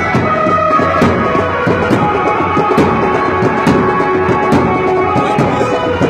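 Loud, steady background music with drums.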